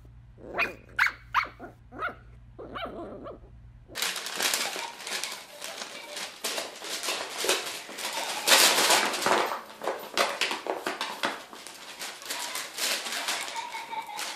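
A dog gives about five short pitched barks. Then, about four seconds in, a cardboard box is shoved and scraped across a tile floor by a dog, a dense, continuous scraping with many small knocks.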